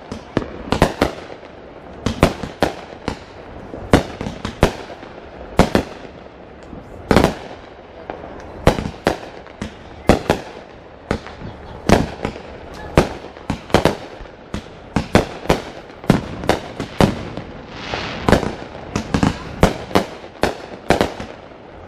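Aerial fireworks exploding in a continuous barrage: sharp bangs about one to two a second, some in quick clusters, each trailing a short echo.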